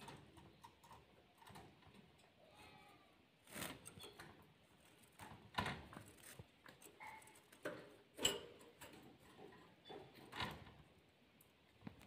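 Canaries moving about a wire cage: scattered light taps and knocks, irregular and faint, of feet landing on the wire and beaks pecking, the sharpest a little past the middle.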